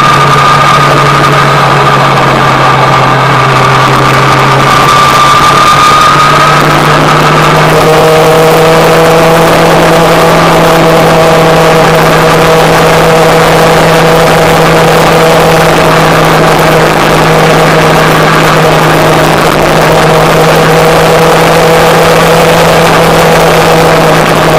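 Motorcycle engine running steadily at road speed under a rush of wind and road noise; its note shifts twice in the first eight seconds, then holds steady.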